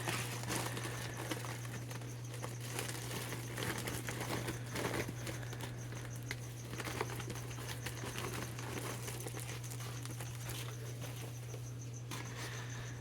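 Plastic shipping bags rustling and crinkling as they are handled, with scattered light clicks over a steady low hum.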